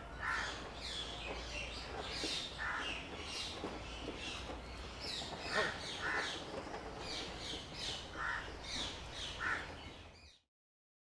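Crows cawing again and again, with smaller birds chirping among them; the sound cuts off suddenly near the end.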